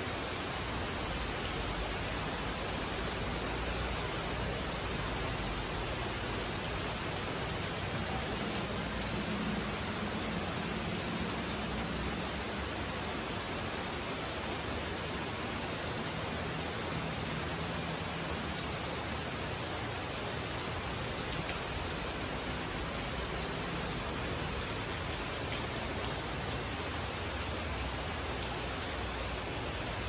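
Steady rain falling on dense tropical foliage: an even hiss with faint scattered drop ticks.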